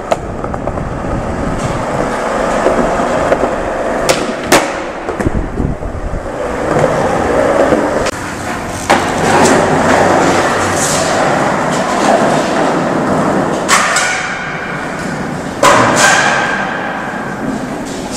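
Skateboard wheels rolling over a smooth concrete floor, with several sharp clacks of the board striking the concrete, the clearest about 4 seconds in and twice near the end. The clacks echo off the concrete of the underground garage.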